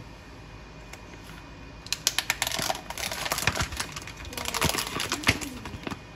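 Rapid clicking and crinkling of plastic food packaging being handled. It starts about two seconds in and goes on in quick irregular clicks.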